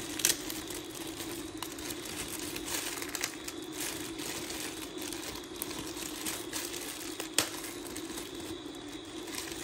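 Crisp pork rinds (khaep mu) crinkling and crackling as they are handled and broken, with a few sharp clicks, over a steady low hum.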